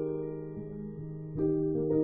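Soft background piano music: a sustained chord fading, then a new chord struck about one and a half seconds in.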